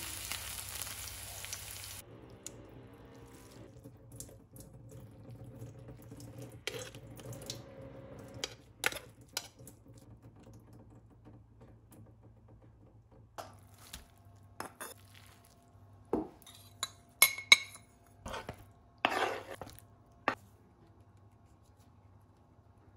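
Onions frying in oil in a pan, sizzling loudly for about the first two seconds while stirred with a wooden spatula. Then scattered clinks and knocks of metal kitchenware and utensils, with a cluster of sharp clinks in the second half.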